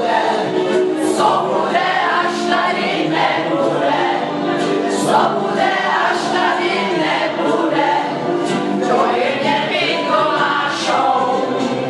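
A group of women singing a song together from song sheets, many voices at once.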